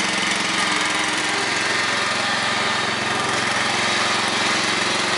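Small lawnmower engine running steadily at a constant speed.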